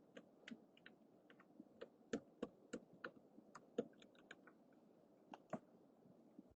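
Typing on a computer keyboard: faint, irregular key clicks a few per second, with a brief pause about two-thirds of the way through.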